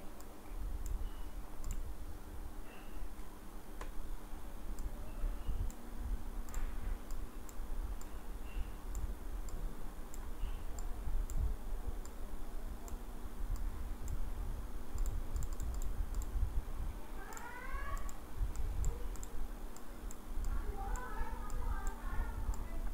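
Scattered light clicks of a computer mouse over a steady low hum.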